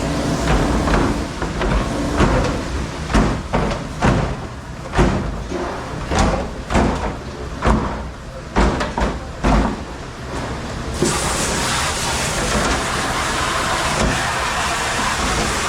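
Dishware and racks clattering and knocking irregularly; about eleven seconds in, a steady rushing hiss of water spray starts suddenly, as of a dish machine or spray nozzle.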